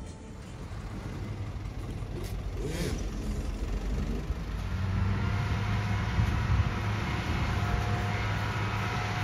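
A motor vehicle engine running steadily with a low hum; a thin steady whine joins in about five seconds in.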